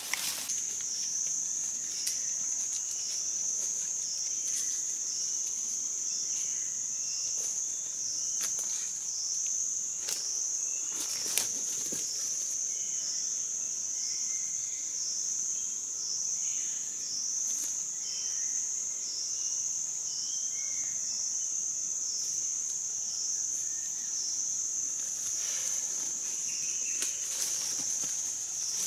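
A steady, high-pitched insect drone that dips slightly in rhythm about once a second. Over it come scattered snaps and rustles of dry leaf litter and twigs underfoot, the sharpest about eleven seconds in.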